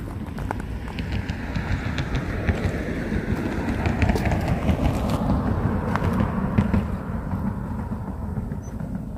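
Footsteps on gravelly desert ground, scattered crunches and clicks over a steady low rumble that swells in the middle and eases off near the end.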